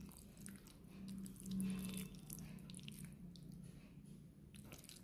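Faint scrapes and light clicks of a metal fork against a ceramic plate as spaghetti is twirled, over a low steady hum.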